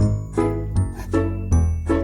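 Background music: a light tune with a steady pulse, a bass line and high chime-like notes.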